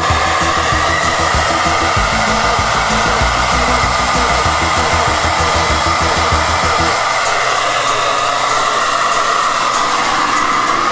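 Hand-held hair dryer running, a loud steady rush of air with a whine in it, coming in abruptly. A low music beat plays under it for about the first seven seconds.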